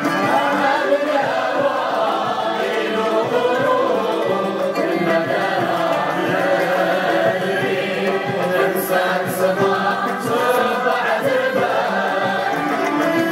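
An ensemble of ouds, mandolins, guitars and violins playing, with the players singing together in chorus.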